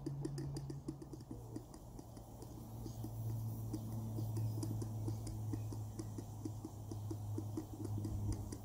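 A live-steam model beam engine running steadily, its moving parts and exhaust making a rapid, even patter of light clicks. Under the clicks is a steady low hum that drops a little in pitch about a second in.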